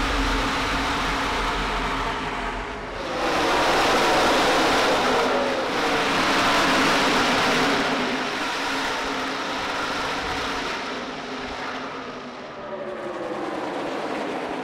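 Pack of NASCAR Truck Series race trucks passing at full speed, their V8 engine notes falling in pitch as they go by. The sound swells loudest from about three seconds in, with a second, smaller pass near the end.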